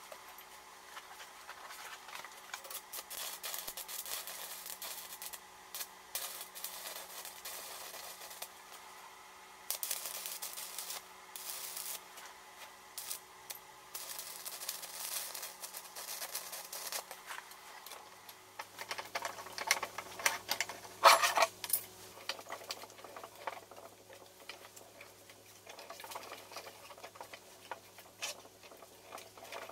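Electric arc welding in four runs of two to three seconds each, with short pauses between them. Then metal clinks and clanks, the loudest about two-thirds of the way through.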